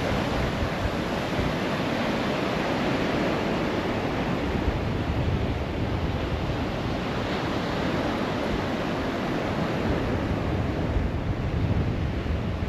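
Waves washing on the shore in a steady rush, with wind rumbling on the microphone.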